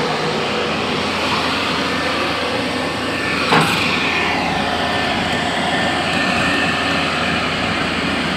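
JCB backhoe loader's diesel engine running steadily, with a single sharp knock about three and a half seconds in.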